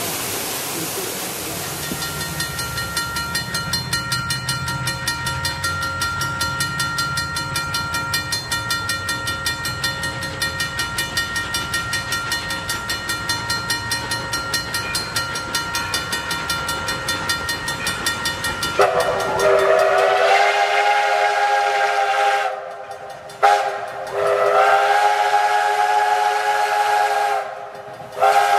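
After a second or so of falling-water noise, steam locomotive No. 60 is heard working toward the listener with a quick, even chuff. About two-thirds of the way in, its chime steam whistle sounds in several blasts: a long one, a short one, another long one, and a short one at the end.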